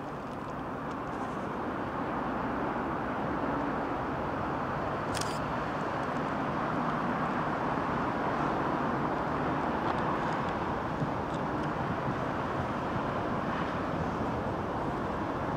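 Class 73 electro-diesel locomotive 73204 running on its English Electric diesel engine as it moves slowly through the yard hauling a test train. The steady engine drone grows a little louder over the first couple of seconds as it approaches. A short click sounds about five seconds in.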